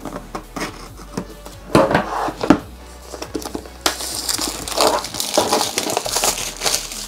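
Cardboard box being handled and opened: a few knocks and rustles, then, about four seconds in, a longer stretch of cardboard scraping and rustling, with background music underneath.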